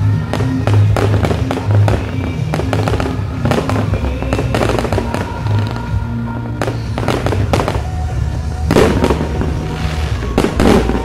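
Fireworks display: repeated bangs and crackling of bursting shells and spark fountains, over steady music, with the densest flurry of bangs near the end.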